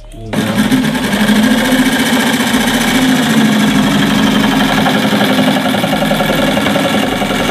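Corded electric jigsaw starting up about a third of a second in and running steadily while its reciprocating blade saws a straight cut through plywood at the low speed setting 2, a setting at which straight cutting goes hard.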